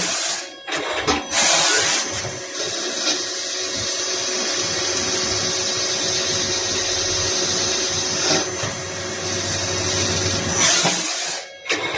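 CNC machine at work, cutting: a continuous mechanical noise with a few steady tones through it. It swells louder near the start, about a second and a half in, and again near the end.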